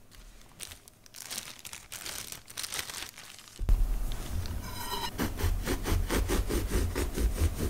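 Paper bread bag crinkling as a loaf is taken out. From about five seconds in, a serrated bread knife saws through the soft loaf in quick, even back-and-forth strokes.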